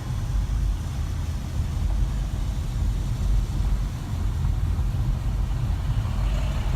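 Low, steady rumble of a car driving, heard from inside the cabin: engine and road noise.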